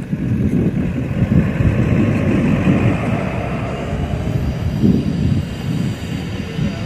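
A Hyundai Santa Fe SUV driving over a rough dirt trail: a steady low rumble from its engine and tyres on the loose ground.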